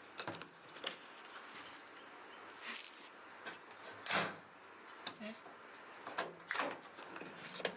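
Household handling noises in a small room: a few separate soft knocks and rustling scrapes, as of things being picked up, set down or slid, over low room noise.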